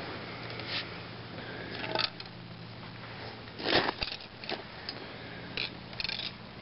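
Irregular crunches and scrapes of someone moving over rotten, candled honeycomb ice, the loudest crunch a little under four seconds in, over a steady low hum.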